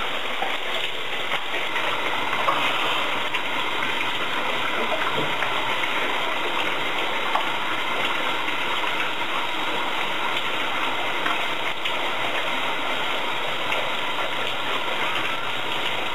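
Shower water running steadily, spray splashing down without a break.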